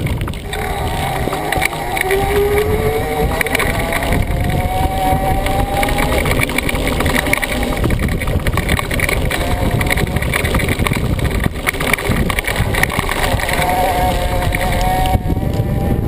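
Bicycle riding fast over a rough dirt road, with wind buffeting the fork-mounted microphone and the tyre rumbling over the ground. A whine rises in pitch as the bike picks up speed, twice.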